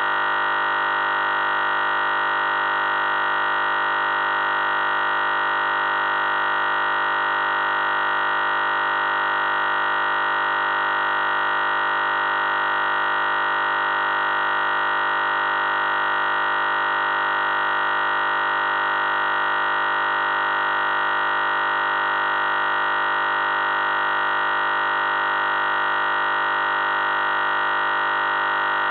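A steady electronic buzzing drone that never changes in pitch or loudness, strongest in the upper middle range.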